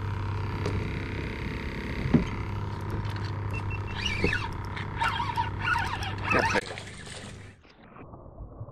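Handling knocks and rubbing on a plastic fishing kayak over a steady low hum. Near the end the sound turns suddenly muffled as the microphone drops to the water's surface.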